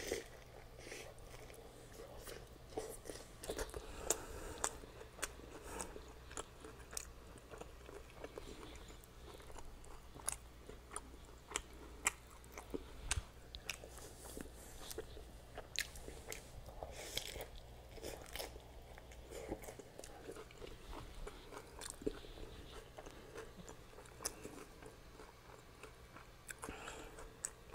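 A person biting into and chewing a taco with a baked cheese shell, steak and guacamole: a string of small, irregular mouth clicks and smacks.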